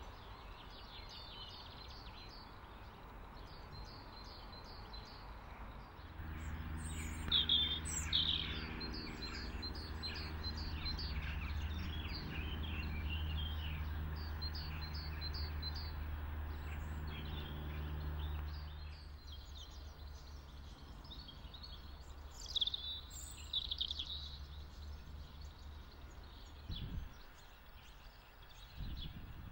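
Small songbirds chirping and singing in quick repeated phrases throughout. From about six seconds in to about nineteen seconds a steady low engine hum sits underneath. A couple of low thumps come near the end.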